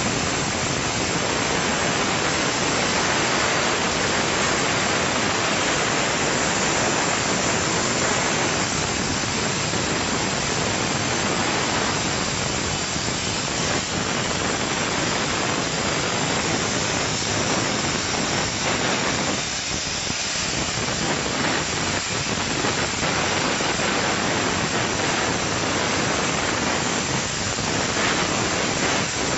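105 A Hypertherm plasma torch on a CNC cutting table cutting mild steel plate: a steady, loud hiss of the plasma arc and its gas jet, dipping briefly about two-thirds of the way through.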